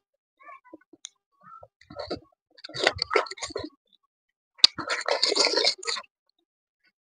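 Close-miked chewing and wet mouth sounds of a person eating soft boiled vegetables by hand, in two bursts about two and five seconds in, with a sharp click at the start of the second burst.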